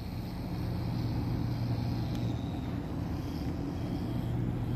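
Heavy vehicle's diesel engine idling steadily, a low, even hum.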